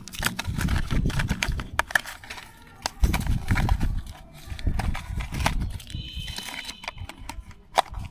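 Handling noises of granular ribavirin medicine being mixed with a little water for a dog: irregular clicks, knocks and rumbling, with a brief high squeak about six seconds in.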